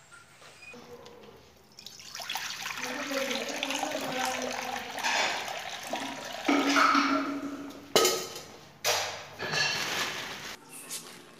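Water poured from a pot into an iron kadai, splashing in the pan, starting about two seconds in. There are two sharp metallic knocks near the end.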